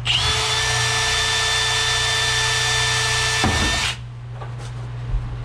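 Electric drill spinning up and running at a steady speed for about four seconds, then stopping abruptly.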